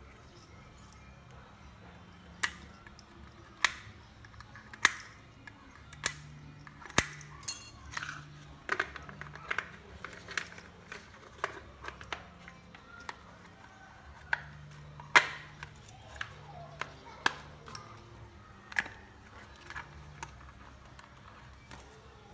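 Sharp clicks and taps of small hard parts and tools being handled while working on an electric kettle, coming irregularly about once a second, some louder than others.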